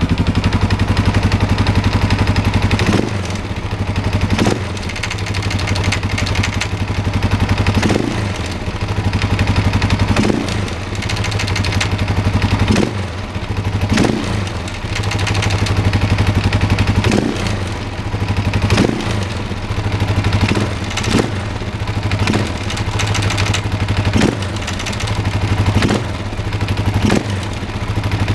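Husqvarna TE610e single-cylinder four-stroke motorcycle engine idling and given short throttle blips every couple of seconds, with a rattling, clattering noise from the engine.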